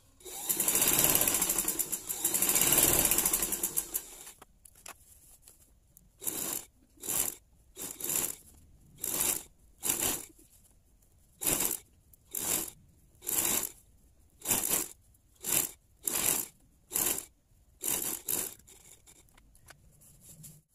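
Sewing machine stitching curtain ruffles: one continuous run of about four seconds, then about fifteen short bursts of a few stitches each, roughly one a second, as the fabric is folded and fed between bursts.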